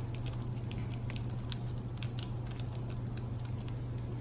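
Faint scattered clicks and ticks of small parts and tools being handled, over a steady low hum.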